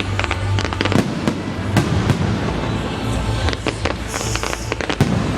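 Fireworks finale: a steady run of sharp bangs with crackling between them, and a burst of high crackling hiss about four seconds in.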